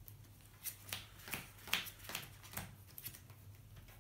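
Sleeved Yu-Gi-Oh cards being shuffled and dealt out into an opening hand: a string of short, sharp card snaps and taps, roughly two or three a second, starting just under a second in.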